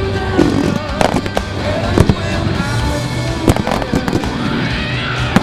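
A fireworks finale: aerial shells bursting in quick, irregular succession, several sharp bangs a second, with crackle between them. Music plays under the explosions.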